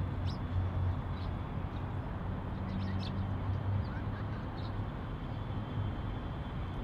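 Steady low outdoor rumble with a few brief, high bird chirps scattered through it.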